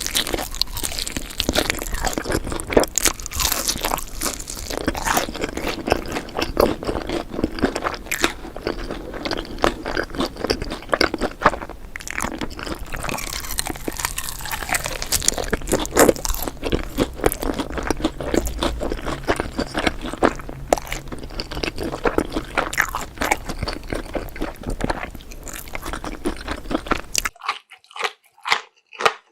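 Close-miked ASMR mukbang eating sounds: spicy noodles being chewed, with dense, irregular wet mouth clicks and smacks. Near the end a low background hum drops away and slower, rhythmic chewing continues on its own.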